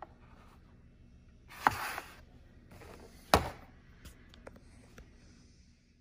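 Blister-carded action figures being handled and stood on a tabletop: plastic and card rustle with a sharp knock about a second and a half in and another about three seconds in, then a few light ticks.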